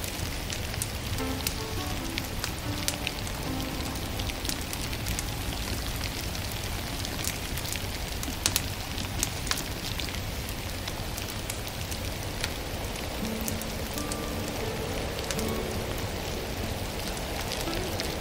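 Wood fire crackling with scattered sharp pops, the loudest about halfway through, over a steady rain-like hiss. Soft, sparse music notes sit underneath.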